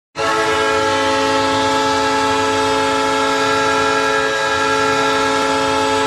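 Ice hockey goal horn blowing one long unbroken blast, a chord of several steady tones like a train air horn, starting sharply.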